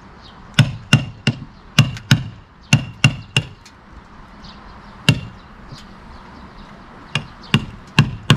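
Hammer tapping a chisel against the frame of a bus window: about thirteen sharp blows, in quick runs of two or three with short pauses, and a lull in the middle broken by a single blow.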